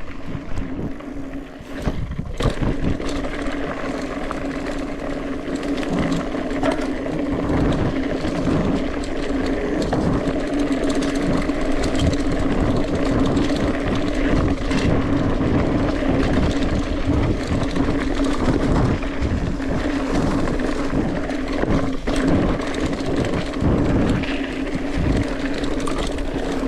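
Mountain bike riding noise: wind buffeting the microphone and tyres rumbling over the trail, with frequent bumps and a steady low hum.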